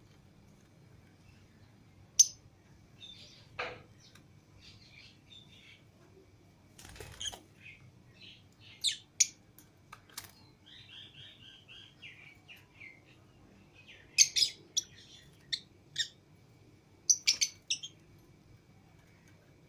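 Lovebirds calling with sharp, shrill chirps in scattered bursts. About halfway through there is a run of quick repeated chattering notes.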